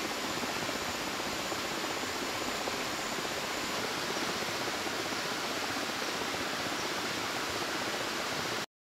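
Steady rushing of river water, an even hiss with no separate events, cutting off suddenly near the end.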